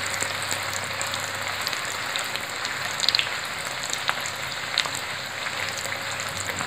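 Stuffed wheat-flour rolls shallow-frying in a little hot oil in a non-stick pan: a steady sizzle with scattered pops and crackles, a small cluster of them about three seconds in.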